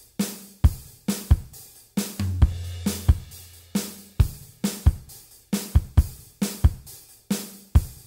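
Background music: a steady drum-kit beat with kick, snare and hi-hat, and a low bass note held for about two seconds near the start.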